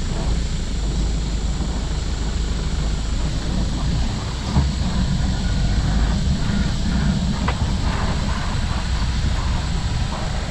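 Safari jeep engine running with a steady low rumble, heard from inside the open vehicle, with a brief knock about halfway through.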